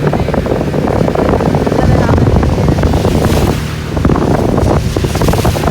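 Floodwater rushing and splashing against a car as it drives through, in irregular surges, with two stronger hissing splashes in the second half.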